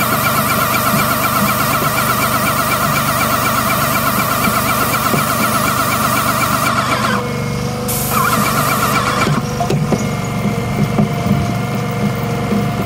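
Graco ES 500 battery-powered airless paint sprayer spraying traffic paint from the gun with a loud steady hiss over the running pump. The spray cuts off about seven seconds in, comes back for about a second, then stops while the machine keeps running with a steady hum.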